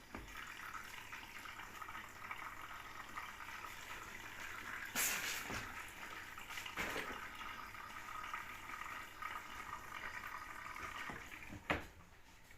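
Steady running water, with a louder splash about five seconds in and a short sharp knock near the end.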